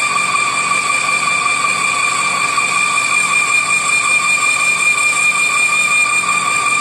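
Metal lathe running while its tool cuts a large spinning iron workpiece: a steady high whine over machine noise, with a low hum that pulses about twice a second.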